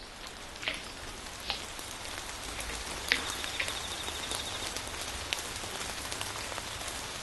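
Steady rain-like hiss that fades in at the start, with scattered sharp clicks and crackles, and a brief buzzing high tone about three seconds in.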